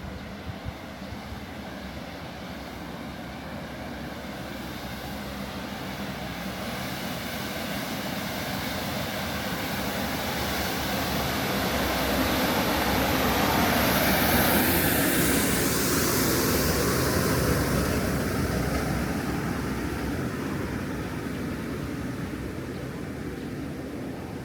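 An aircraft passing overhead: its engine noise swells slowly to a peak about halfway through, with a high whine that sweeps down in pitch as it passes, then fades away.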